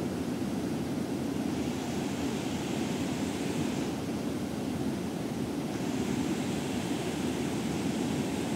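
Water rushing steadily over a river weir, a constant low rush with a faint hiss above it.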